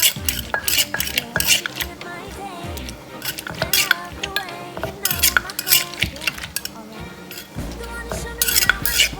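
Pestle and spoon knocking and scraping in a mortar as som tam is pounded and mixed, irregular sharp knocks several times a second, over background music.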